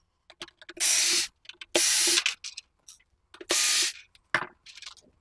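Small cordless electric screwdriver running in three short bursts of about half a second each, backing screws out of a metal battery cover, with light clicks of the tool and screws in between.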